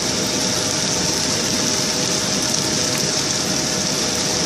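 Steady kitchen noise at the stove: an even hiss with a faint steady hum underneath.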